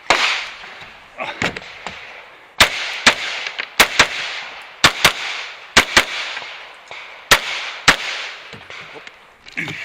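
Handgun shots: about ten sharp cracks, several fired in quick pairs about a fifth of a second apart, each with a short echo.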